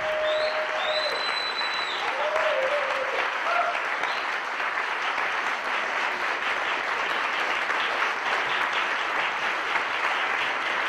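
Audience applauding, steady dense clapping that keeps on without a break.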